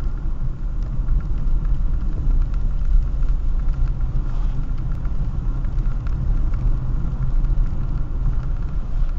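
Car driving at steady speed, heard from inside the cabin: a continuous low rumble of engine and road noise.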